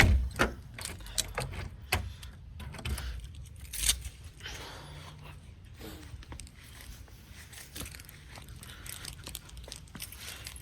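Close handling noise: a run of knocks, clicks and jangling in the first four seconds, loudest near the start and again just before four seconds in, then quieter rustling and scattered clicks.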